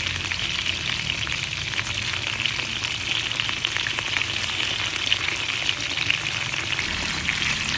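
Beef slices sizzling in hot oil in a wok: a steady crackle of many small pops.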